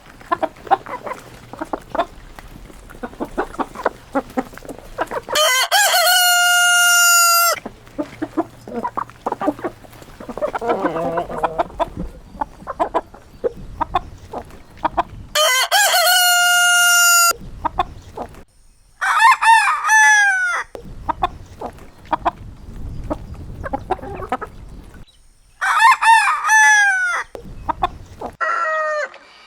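Roosters crowing five times: two long crows held at a level pitch and three shorter crows that fall in pitch, with chickens clucking between them.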